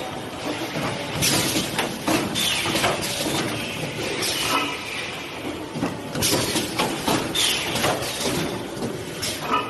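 Model 550A blister-book and container-making machine running through its cycle, with a steady mechanical background. A pair of loud clattering strikes about a second apart comes roughly every five seconds, each followed by a short hiss that falls in pitch.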